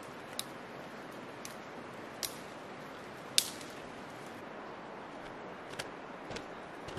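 Dry dead twigs snapping as they are broken off a small tree by hand for kindling: about seven short, sharp cracks, the loudest about halfway through, over a steady background hiss.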